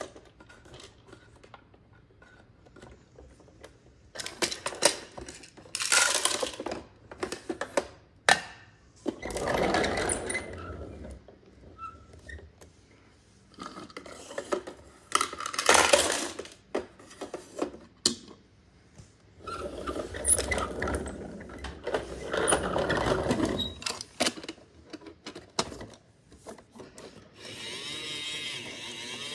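Plastic toy garbage truck and toy trash bins handled on a hard floor: plastic clicks and clatters, with two longer spells of low rumbling as the truck's wheels roll. Near the end a button on the truck is pressed and its battery-powered mechanism starts a steady buzz.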